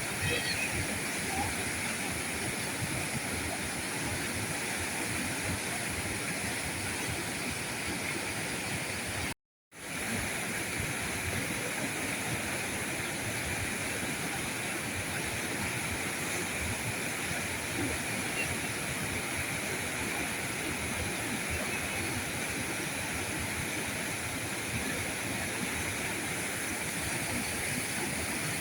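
River current rushing steadily over rocks, a continuous even wash of water. It drops out to silence for a moment about nine and a half seconds in, then comes straight back.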